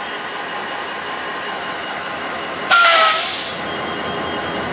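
Union Pacific EMD GP40-2 diesel locomotives running as they roll slowly by at low speed, a steady engine sound with a light high whine. A little over halfway through comes a sudden loud hiss of compressed air venting, with a faint falling whistle, dying away within about a second.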